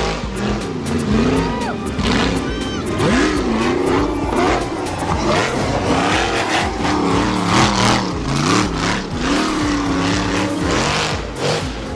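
Rock buggy engine revving hard, its pitch rising and falling again and again as the driver works the throttle up a loose dirt climb, with dirt and stones clattering against the tube chassis.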